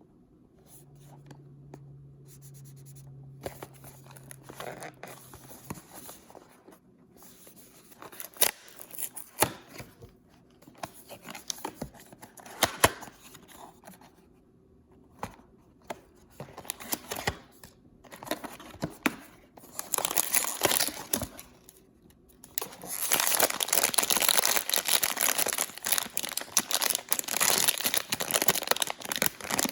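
Paper packaging being handled and torn open by hand: scattered short rustles and taps at first, then from about 22 seconds in a long, continuous crinkling and tearing of paper.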